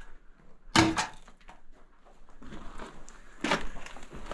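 Footsteps scuffing and crunching on loose rock and gravel while climbing through a narrow rock passage, with a sharp scrape or knock about a second in and another louder scuff near the end.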